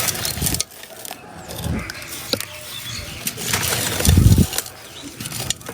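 Hardened crumbling-texture pieces being crushed and broken by hand, giving gritty crackling and sharp little snaps. A deeper crunching swell comes about four seconds in.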